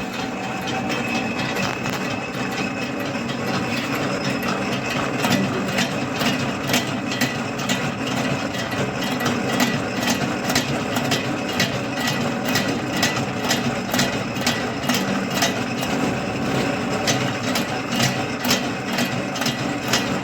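Drilling machine running with a slotting attachment: a steady motor hum with a regular rhythm of sharp clicks, which come in a few seconds in, as the cam drives the slotting tool back and forth.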